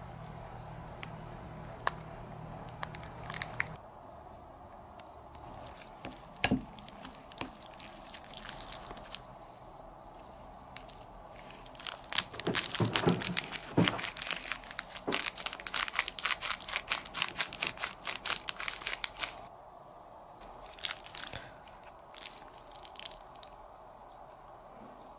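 Plastic sauce sachet crinkling as it is squeezed out over noodles, then chopsticks mixing sauced noodles in a ceramic bowl: rapid wet clicking and squelching, loudest in a long spell in the middle, with a shorter spell near the end. A low hum stops about four seconds in.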